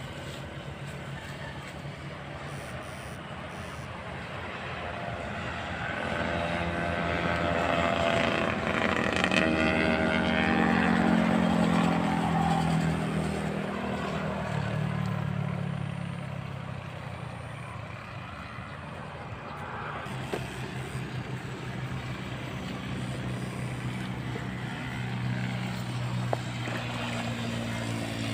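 A motor vehicle's engine passing by: it grows louder over several seconds, its pitch drops as it passes, and then it fades. A steadier engine hum carries on through the second half.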